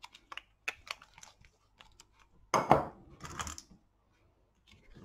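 Hands handling a card box and a glue bottle on a craft mat: light clicks and small paper rustles, a louder knock about two and a half seconds in, and a short rustle just after it.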